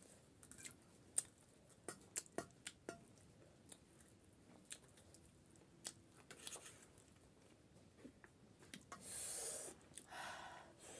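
Someone eating pani puri close to the microphone: faint crisp cracks and crunches as the hollow puri shells are bitten and chewed, a scatter of short sharp clicks. Two longer noisy sounds of about a second each follow near the end.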